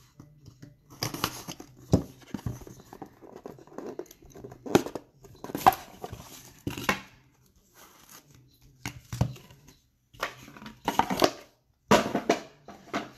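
Small cardboard trading-card box being slit open with a blade and pulled apart by hand: a string of short, irregular tearing and scraping noises.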